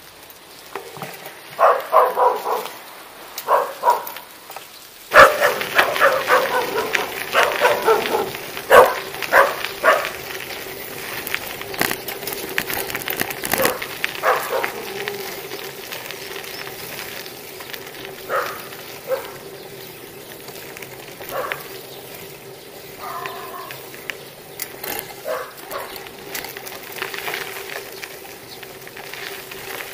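Dogs barking repeatedly, thickest in the first ten seconds and then only now and again, over the steady rolling noise of a bicycle ridden along a rough road.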